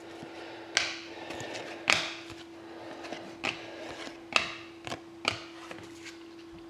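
Hockey trading cards being handled and flipped through one by one, a short swish or tap every second or so, over a faint steady hum.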